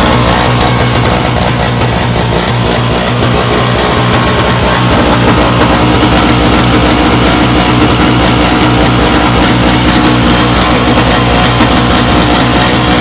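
Guitar-based rock music over the small single-cylinder engine of an MTD Yard Machines snowblower running steadily. The carburetor has been cleaned of gummed-up fuel, and the engine runs now that it has.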